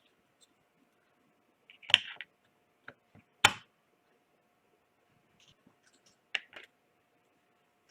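A few sharp clicks and knocks of small hard parts being handled, loudest about two and three and a half seconds in, with two more near the end.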